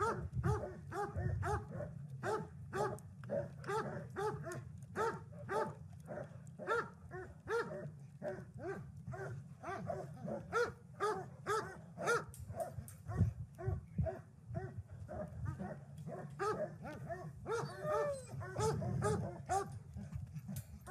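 Dogs barking over and over, about two to three barks a second without letting up, over a low rumble.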